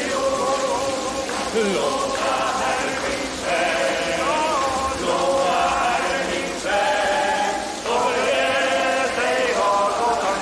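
A group of voices chanting together in short phrases, each about a second long, with brief breaks between.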